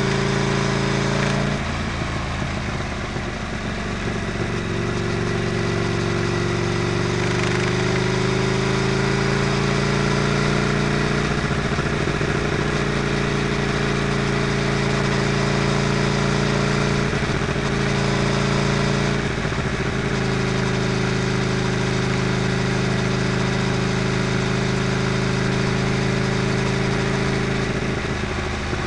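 Motorcycle engine running steadily under way, heavily mixed with wind and road rush on a camera mounted by the rear wheel. The engine note shifts briefly a few times.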